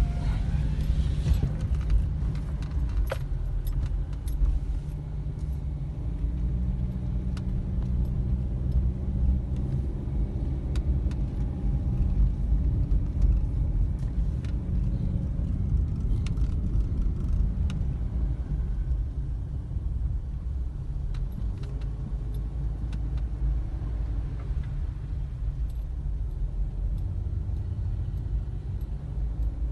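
Low road rumble inside a moving car's cabin, with scattered light clicks and rattles.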